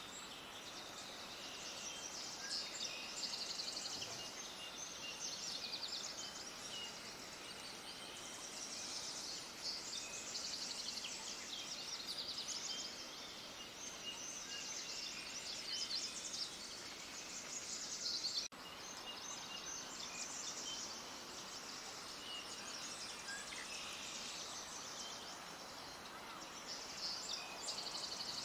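Many small birds chirping and trilling together in a dense, high-pitched chorus over a faint background hiss, with a sudden break about two-thirds of the way through.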